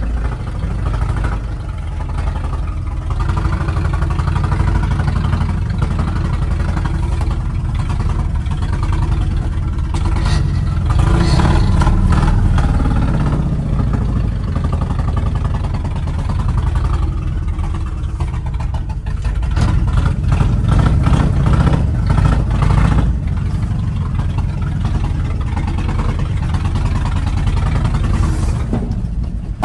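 1970 Ford F250's engine running under load as the old truck drives over rough ground, rising and falling with the throttle, with the cab rattling over the bumps. The engine sound cuts off abruptly at the very end, a loss of power that the driver puts down to a knocked-off connection.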